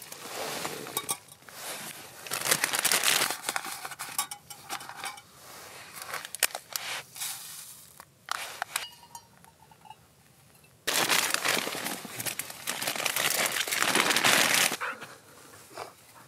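Paper coffee packaging and filter handled, torn and crinkled, with light clinks of a metal dripper set on a titanium mug while pour-over coffee is set up. A longer, louder spell of rustling comes about two-thirds of the way through.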